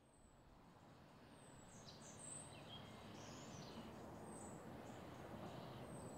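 Quiet outdoor ambience fading in from near silence over the first two seconds, with small birds chirping now and then: short, high, falling chirps.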